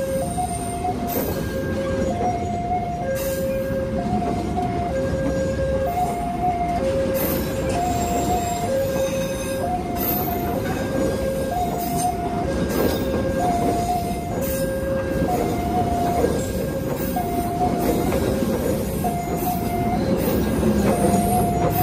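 Executive passenger coaches of the Arjuno Ekspres rolling past close by as the train pulls out, with a steady rumble of wheels on the rails. Through it the level-crossing warning alarm keeps sounding, alternating a lower and a higher tone about every two seconds.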